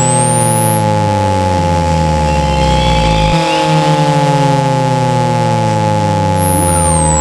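Synthetic speaker-cleaning tones for ejecting water from a phone speaker: a pure tone sweeping very high, rising out of the top about two seconds in and coming back down near the end, over steady mid tones and a low buzzing hum that shifts about halfway through.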